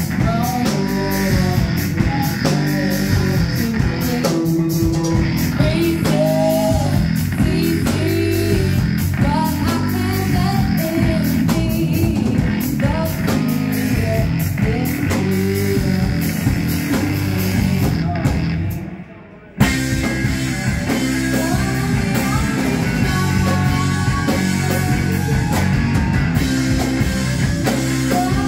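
Live rock band playing loud with a singer, electric guitar, bass guitar, drum kit and saxophone. About two-thirds of the way through, the sound drops away for about a second, then the full band comes back in at once.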